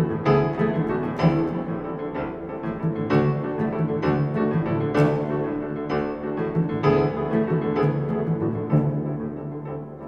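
Instrumental music: piano notes struck every second or so over low, sustained bowed-string tones, easing slightly near the end.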